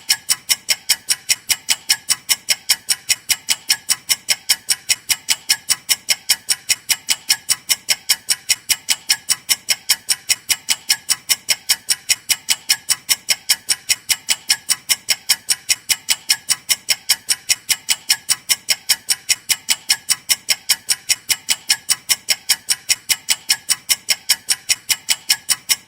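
Clock ticking fast and evenly: a steady run of sharp, identical ticks, several a second, without a break.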